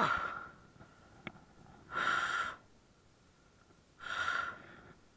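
A man breathing hard, winded from fighting a fish: a short falling vocal sound at the start, then two heavy exhales about two seconds apart.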